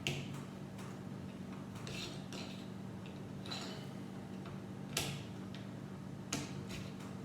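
Plastic Lego pieces clicking and rattling as they are handled and pressed onto the build: a handful of sharp clicks, the loudest about five seconds in and again a second and a half later.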